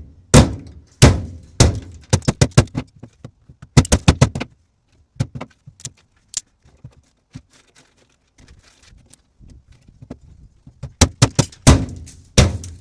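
Mini sledgehammer pounding on a microwave fan motor to knock the fan off its shaft: a string of hard, ringing blows, some in quick flurries. The blows thin to lighter knocks and a lull partway through, then heavy blows start again near the end.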